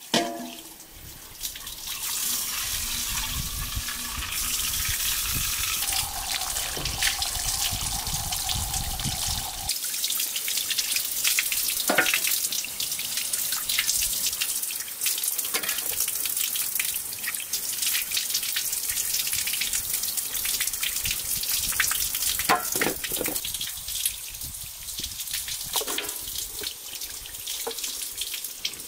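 Water running from a tap and splashing into a basin, with a few knocks of things being handled in the water.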